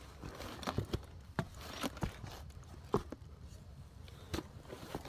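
Footsteps of a hiker climbing a mountain trail: irregular knocks and scuffs of feet on the ground, roughly one to three a second.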